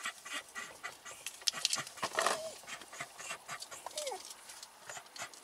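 A dog whining in short whimpers, twice, one about two seconds in and a falling one about four seconds in, over clicking and rustling as shotgun shells are handled in a canvas bag.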